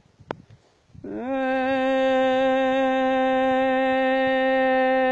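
A singer's voice holding one long, steady note of a Yemeni folk chant, sliding up into it about a second in.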